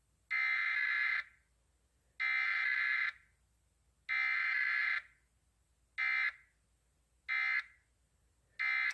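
Burk EAS encoder sending a weekly test: three one-second bursts of SAME header data tones about a second apart, then three shorter end-of-message bursts. No attention tone comes between the header and the end-of-message.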